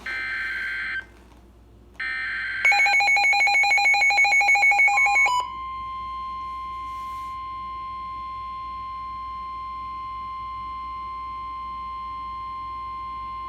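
Emergency alert tones that open a National Weather Service warning. There is a short screechy data burst, then a second one about two seconds in, leading into a loud, rapidly alternating two-pitch alarm. After that comes one long steady tone of about eight seconds near 1 kHz, the Weather Radio warning alarm tone, which cuts off near the end.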